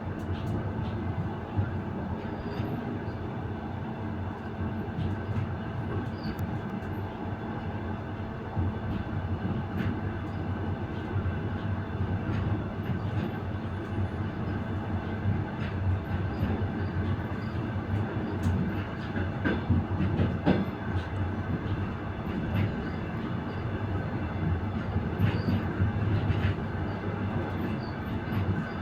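Passenger train car running on the rails, heard from the vestibule at the end of the car: a steady rumble of the wheels with a few sharp knocks from rail joints scattered through it.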